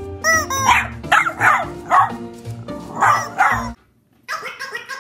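A dog barking about six times in quick succession over background music, the barks stopping suddenly near the end.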